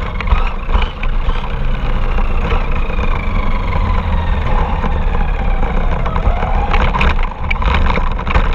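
RC car driving, heard from a camera mounted on it: a heavy rumble of wheels and vibration over rough ground, with a thin motor whine that rises and falls with speed and occasional knocks.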